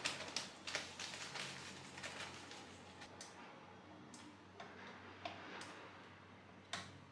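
Sugar pouring from a plastic bag into a stainless-steel mixing bowl, a dense rattle of granules for the first second or so. Then a few scattered metallic clicks and taps as a wire whisk is fitted onto the stand mixer.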